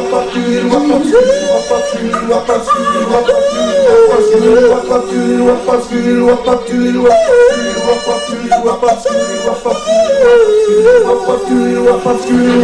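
Vocal group singing a cappella: wordless close harmony, with a lead voice swooping and wavering in a yodel-like way over steady held lower notes.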